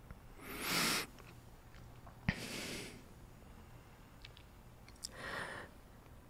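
A man breathing close to the microphone: three breaths about two seconds apart, the first the loudest, with a small sharp click just before the second.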